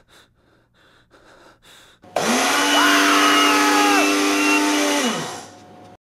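Breville Blend Active personal blender switching on about two seconds in and blending fruit at a steady pitch for about three seconds, then winding down with a falling pitch and stopping.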